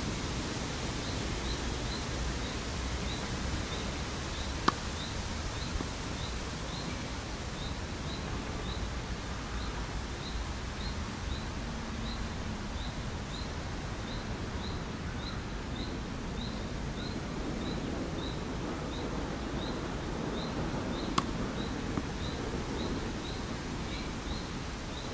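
Outdoor background noise with a short high chirp repeating about twice a second, from a bird or insect. Twice, about five seconds in and again near the end, a tennis racket strikes a ball with a sharp crack, each followed about a second later by a fainter knock.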